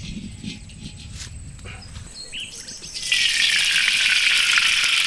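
A few birds chirping, then, about three seconds in, a sudden loud, steady sizzle with crackles as something hits hot oil in a kadai.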